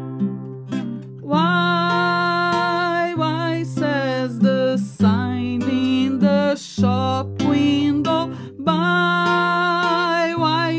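Acoustic guitar strummed in a steady chord pattern, with a woman singing a wordless la-da-da melody over it.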